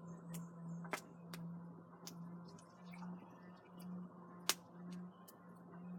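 Wood fire crackling, with sharp pops coming at irregular intervals and the loudest about four and a half seconds in, over a steady low hum.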